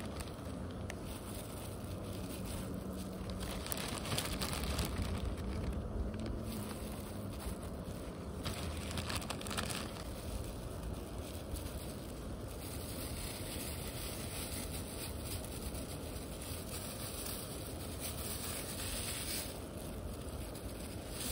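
Wind rumbling and hissing on the microphone outdoors, swelling and easing every few seconds.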